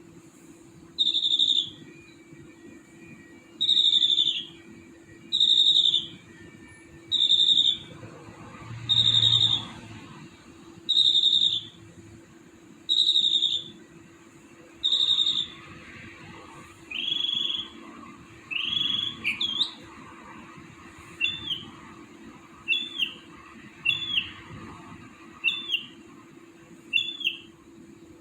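A bird singing at night: a single clear whistled note, falling in pitch, repeated about every one and a half to two seconds. From about halfway the notes turn shorter and hooked and come a little faster, over a faint steady hum.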